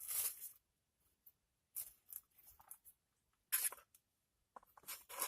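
Eating noises from a takeout rice meal: several short scraping, rustling sounds with quiet gaps between.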